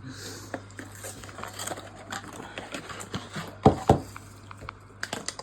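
Dessert packaging being handled and opened: scattered small clicks and rustles, with two sharp knocks about three and a half seconds in.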